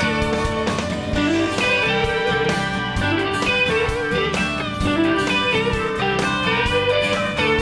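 Background music: a plucked guitar tune.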